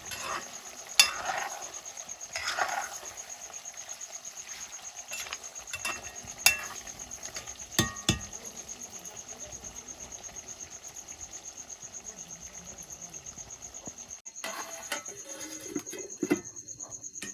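A steady, high insect trill, pulsing fast, with a few sharp clinks of dishes about a second in, then around six and eight seconds in.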